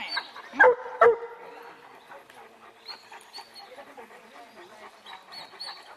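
A Polish Tatra Sheepdog barking twice in quick succession, two loud barks under half a second apart, the second trailing off briefly.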